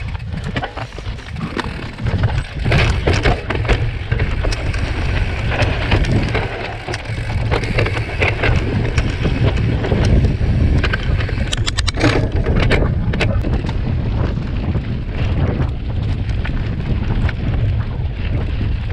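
Wind buffeting the microphone as a cross-country mountain bike rides fast over a dirt and gravel trail, with tyres crunching on loose ground and the bike rattling over bumps. A quick burst of rattling clicks comes about twelve seconds in.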